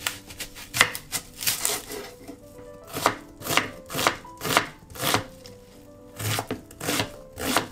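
Kitchen knife chopping an onion on a wooden cutting board, mincing it finely with sharp knocks about two a second.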